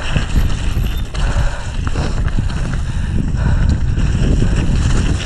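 Wind rushing over an action camera's microphone during a fast mountain-bike descent over rough, muddy ground, with tyre noise and occasional clatter from the bike over bumps.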